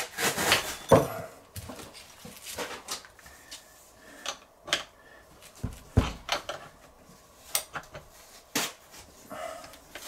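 Irregular metallic clicks and clanks of cable clamps and tools being fitted to a car battery's terminals by hand, with a heavier knock about six seconds in.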